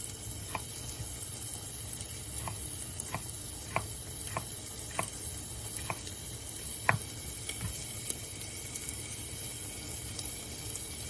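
Chicken sizzling steadily in a hot pan, with about nine light clicks and taps scattered through the first eight seconds, the sharpest one about seven seconds in.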